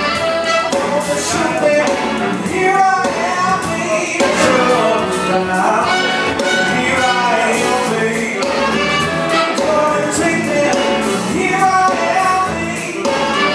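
Music with a singing voice.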